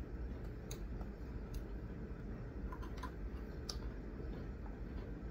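Chewing of crunchy chocolate sandwich cookies: a few scattered crisp clicks and crunches over a low steady hum.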